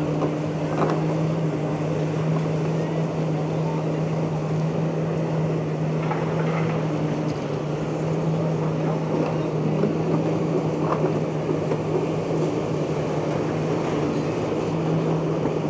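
Diesel engine of a Komatsu PC360 tracked excavator running steadily at one constant pitch under working load as it pulls apart the building, with a few faint knocks of falling debris.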